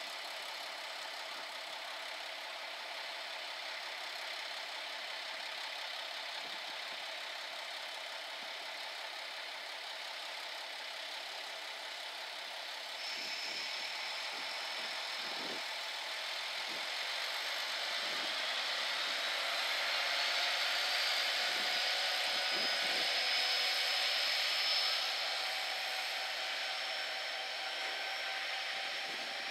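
Diesel engines of a two-car JR KiHa 47 railcar train running under power as it pulls away. From about halfway the engine note and a whine rise steadily in pitch as the train accelerates, and the sound grows louder, easing off a little near the end. A steady high tone joins about halfway in.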